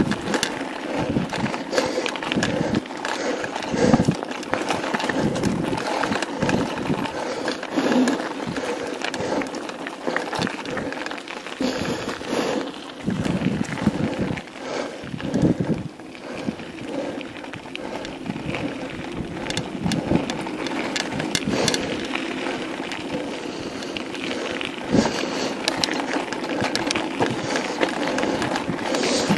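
Mountain bike riding fast down a dry dirt and gravel trail: tyres crunching over the loose surface and the bike rattling and knocking over bumps, with wind rushing over the microphone.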